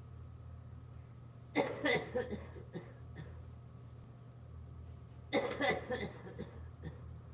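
A person coughing in two fits of several quick, harsh coughs, the first about a second and a half in and the second about five and a half seconds in, over a steady low hum.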